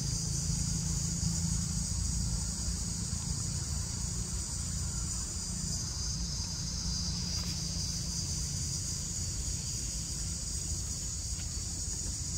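Steady high-pitched chorus of insects, an even unbroken buzz over a low rumble.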